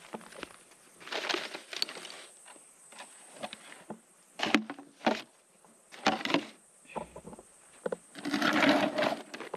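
Footsteps crunching over dry brush and gravel, in uneven steps with short scrapes, the loudest stretch of crunching near the end.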